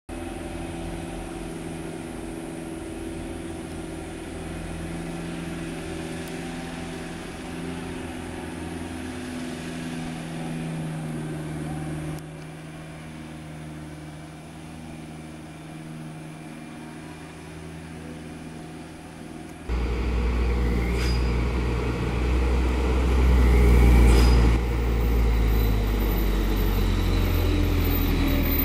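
Diesel engines of a heavy dump truck and then a minibus pulling uphill under load, running steadily in low gear. The sound gets much louder about two-thirds of the way in as the minibus comes close.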